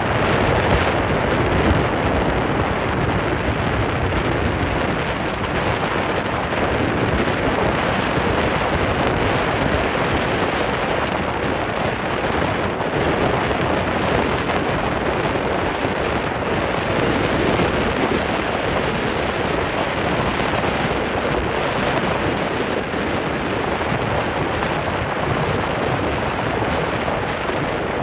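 Steady wind noise rushing over the microphone aboard a Staten Island ferry, with the boat's running noise beneath; an even, unbroken rushing sound.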